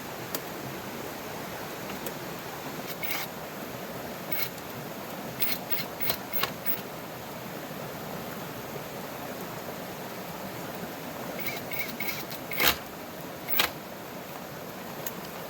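Steady rushing of a river and rain. Over it come scattered short clicks and knocks, with two louder knocks a little under a second apart near the end.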